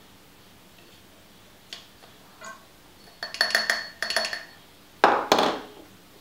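A plastic syringe clicks and clinks against the metal tube of a RockShox Boxxer fork's air side as 5 ml of oil is pushed into the air chamber, with a thin high ring among the clicks. About five seconds in come two sharp knocks close together.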